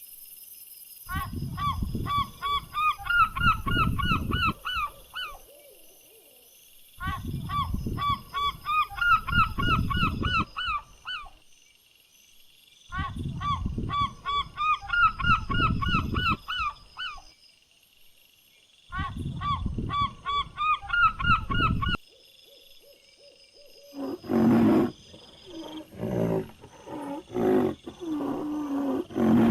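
A bird giving rapid series of honking calls, in four bouts of about four seconds each with short gaps between them. A different, lower and rougher animal call takes over near the end.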